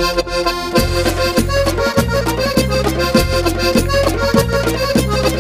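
Instrumental background music with sustained melody notes; a steady low bass beat joins about a second in, repeating a little under twice a second.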